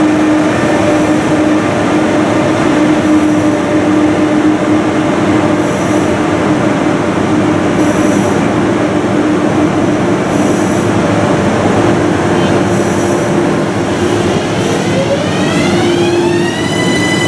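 ÖBB class 1116 Taurus electric locomotive at an underground platform, running with a steady rumble and hum. About three-quarters of the way through, its electric whine rises in pitch over about two seconds, then holds on a steady high note.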